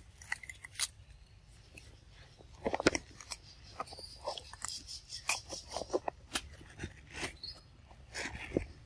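Pig-tailed macaque biting and chewing a raw cucumber: irregular crunching bites. A cluster of louder bites comes about three seconds in.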